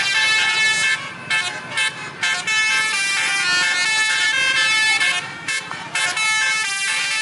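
Bus 'telolet' multi-tone horns playing a quick run of notes. Several horn tones sound together and change pitch in steps, with brief gaps between phrases.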